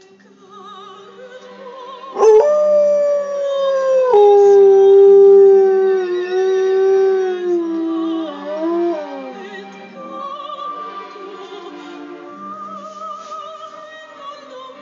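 An Alaskan Malamute howls along with a soprano singing opera from a television. One long, loud howl starts about two seconds in, holds its pitch and slides down at the end around nine seconds in. The soprano's warbling voice carries on under and after it.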